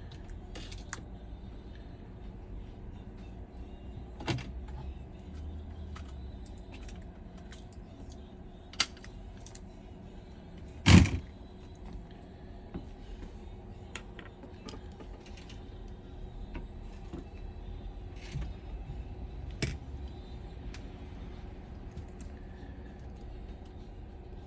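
Small tools and iPhone parts handled on a workbench: scattered light clicks and taps, with one louder knock about halfway through, over a steady low hum.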